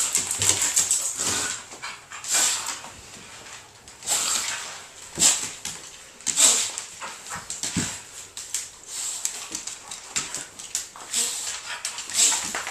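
Two dogs play-wrestling: irregular bursts of dog play noises and scuffling, coming every second or two, with paws on a hardwood floor.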